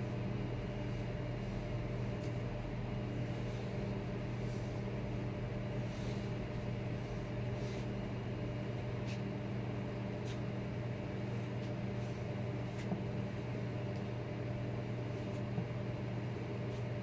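A steady, low mechanical hum, like a fan or appliance running in a small room, with a few faint soft rustles.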